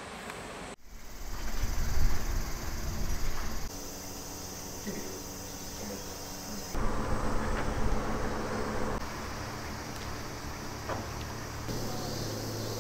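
Summer outdoor ambience with a steady high insect drone. A low rumble is loudest in the first few seconds, and the background changes abruptly several times.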